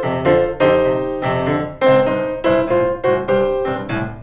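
Piano played with both hands in boogie-woogie blues style: a driving left-hand bassline under right-hand blues-scale riffs and double stops, here over the F chord of the progression, with chords struck in an even, rhythmic pattern.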